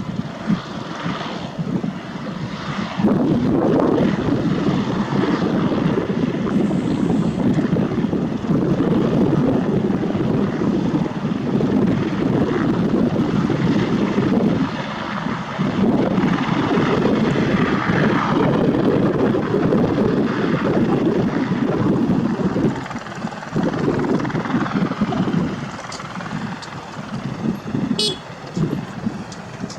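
Aircraft noise at an airport, a steady, rumbling wash that swells and eases, mixed with wind buffeting the microphone.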